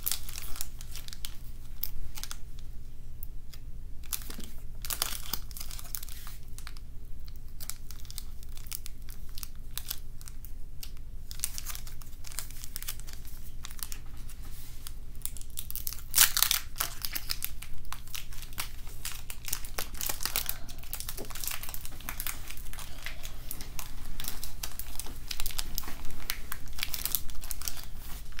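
Foil wrapper of a Pokémon trading card booster pack crinkling and tearing as it is opened by hand, in uneven bursts of rustling, loudest about 16 seconds in and again near the end.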